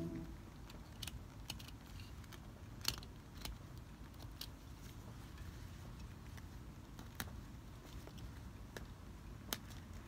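Faint, scattered small ticks and snaps of stitches being unpicked from a leather jacket's sleeve lining, over a low steady hum.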